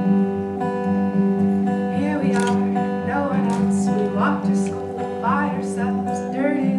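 Live music: acoustic guitar strummed in a steady rhythm in an instrumental gap between sung lines.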